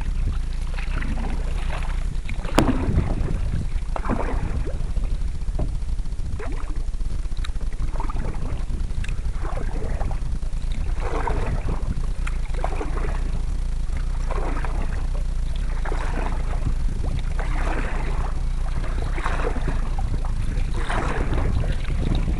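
Canoe paddle strokes swishing through the water, a stroke every second and a half to two seconds, over a steady low rumble of wind on the microphone. A single sharp knock comes about three seconds in.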